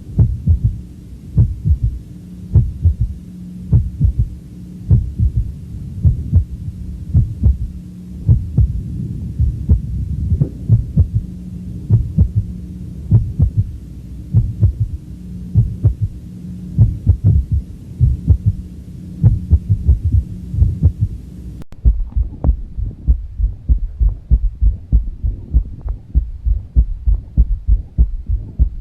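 Heartbeat heard through a stethoscope, low repeated thuds with an extra third heart sound (S3 gallop). A steady low hum runs under the beats until about three quarters of the way in, where it cuts off abruptly and the beats carry on closer together.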